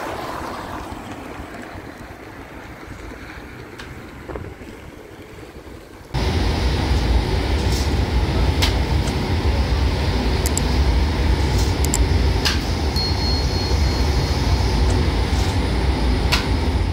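A car drives past on the street at the start. About six seconds in, this gives way to the loud, steady rumble of a machine tafton bread oven running, with occasional sharp clicks and knocks.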